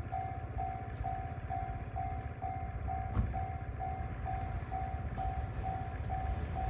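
Japanese railway level crossing warning bell ringing, a steady electronic ding repeating about twice a second, the sign that the crossing is closed for a train. A low rumble runs underneath.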